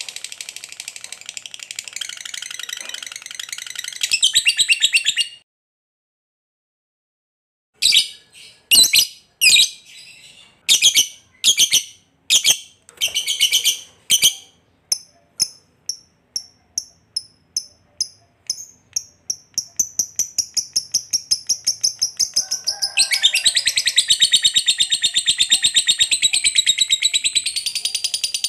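Lovebird calling: a fast, high chattering trill that breaks off about five seconds in, then after a two-second gap a string of separate shrill calls, a run of quick even chirps that speeds up, and near the end a long unbroken chattering trill, the long chatter ('ngekek panjang') that lovebird keepers prize.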